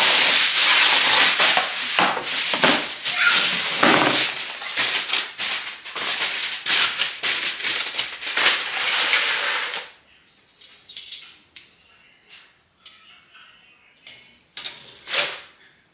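Aluminium foil being handled and crinkled over a roast chicken: a dense, loud crackling for about ten seconds, then a few lighter clicks and taps.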